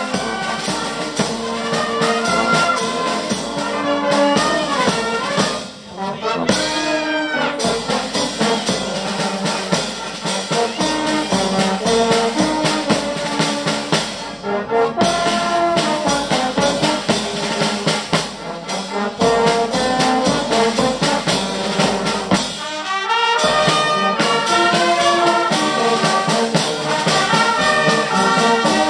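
Brass band playing outdoors: trumpets, trombones and low brass in a tune over a drum keeping a regular beat, with a short break in the playing about six seconds in.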